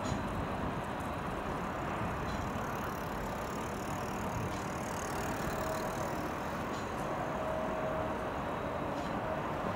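Steady outdoor hum of road traffic, even and unbroken.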